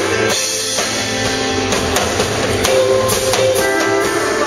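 Live country band playing an instrumental passage, with drum kit and electric guitar.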